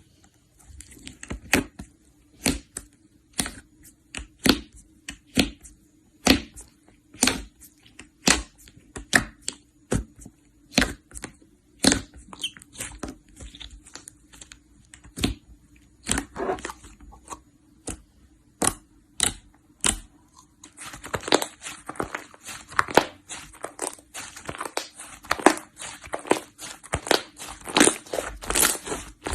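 Slime being pressed and worked by hand, giving sharp pops and clicks about once a second, which turn into dense crackling for the last eight seconds or so.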